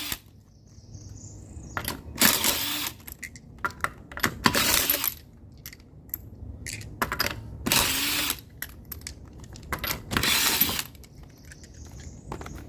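Impact wrench spinning off a car wheel's already-loosened lug nuts: four short bursts, each under a second, about two and a half seconds apart. Light metallic clinks of the nuts come in between.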